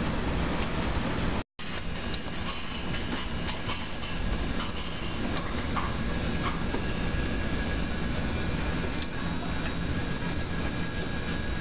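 Fried chicken wings being tossed in a stainless steel mixing bowl, with scattered clicks and rattles, over a steady kitchen din with a low hum. The sound cuts out briefly about a second and a half in.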